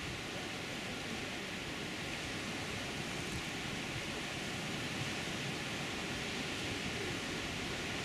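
Sea surf breaking over lava rocks and washing onto a pebble shore, a steady rushing hiss without lulls.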